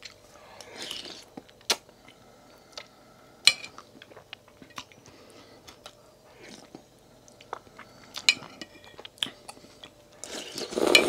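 A person slurping and chewing instant ramen noodle soup, with short clicks of a metal fork against the china bowl. A louder burst of slurping comes near the end.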